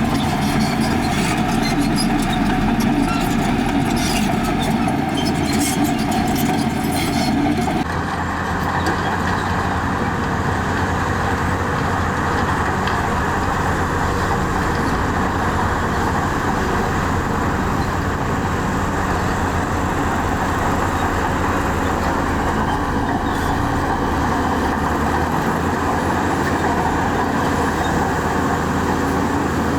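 Heavy diesel earthmoving machinery running steadily, with rapid clicking and clanking over it for the first several seconds. The sound changes abruptly about eight seconds in to a smoother engine drone.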